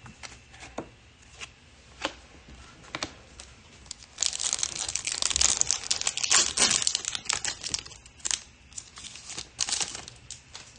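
Baseball cards being flicked through with scattered soft clicks, then about four seconds in a foil trading-card pack wrapper being torn open and crinkled for about three seconds, followed by more clicks as cards are slid out.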